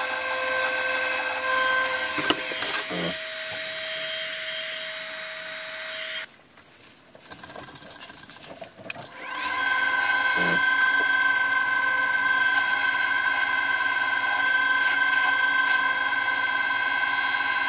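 Wood lathe running with a paper towel held against the spinning spalted beech workpiece to apply finish, the motor giving a steady hum with fixed tones. The lathe is switched off about six seconds in, leaving a few seconds of quiet handling, then starts again and runs steadily while the finish is buffed.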